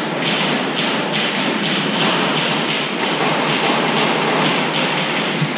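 A dense, continuous clatter of airsoft gunfire, with BBs tapping and thudding against wooden boards and pallets.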